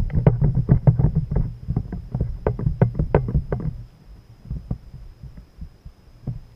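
Rapid close clicks and knocks from a rod and spinning reel being worked in a kayak. They stop about four seconds in, leaving only a few faint ticks.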